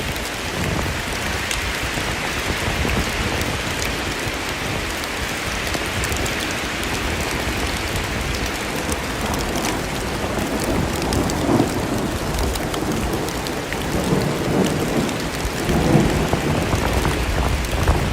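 Steady heavy rain falling, with fine patter of drops hitting a surface. Low surges of sound come and go in the second half.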